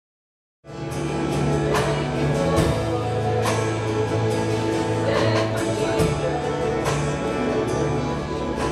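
Live church worship band playing, with drum kit, acoustic guitars and keyboard and steady regular drum hits. The music cuts in abruptly after about half a second of silence.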